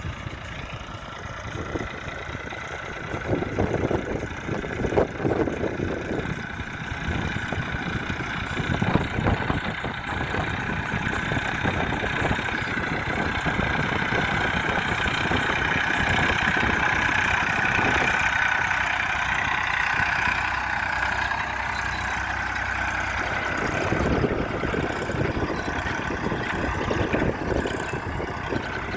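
Massey Ferguson 241 DI tractor's three-cylinder diesel engine running as the tractor works, the level swelling and easing, loudest a few seconds in.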